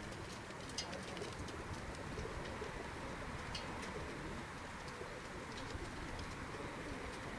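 Racing pigeons cooing in the crates of a transport truck, with scattered light clicks.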